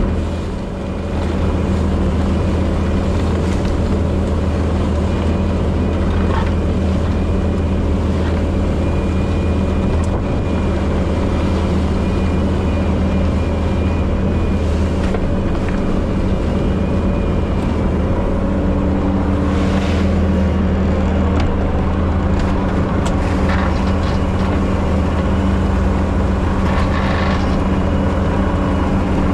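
Bobcat T770 compact track loader's diesel engine running steadily under work, with a few brief scraping or clanking noises near the end.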